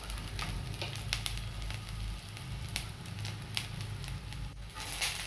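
Chopped onions sizzling in hot oil in a kadai, a steady hiss with scattered sharp crackles.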